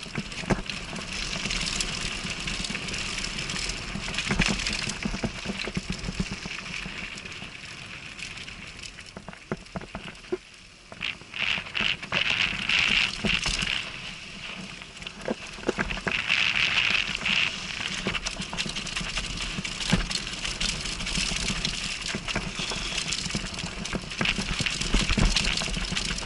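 Downhill mountain bike rolling fast over a dry dirt and gravel trail: a continuous gritty crunch of tyres with the bike rattling and clicking over bumps, and wind rumble on the helmet-mounted microphone. The hiss of the tyres swells about halfway through and again a few seconds later.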